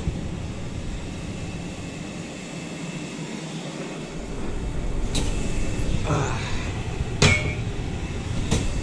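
A casserole dish being lifted out of an open oven with oven mitts and set down on a gas stovetop grate: a sharp clack about five seconds in, a scrape, then a louder clunk about seven seconds in, over a steady low hum.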